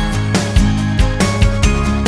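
Background music with a steady drum beat and sustained bass notes.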